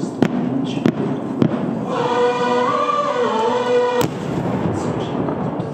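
Aerial firework shells bursting with sharp bangs: three in the first second and a half, and a loud one about four seconds in. Between about two and four seconds a held, sung note from the show's music soundtrack rises over the noise.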